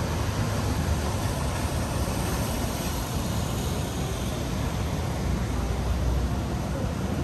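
Steady city traffic noise: an even rumble and hiss with no single vehicle standing out.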